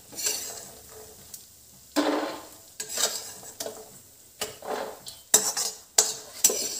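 A metal spoon scraping across a metal kadai and scooping out roasted walnuts and cashews, with a faint sizzle from the hot pan. Several sharp clanks come in the second half as the spoon strikes the pan.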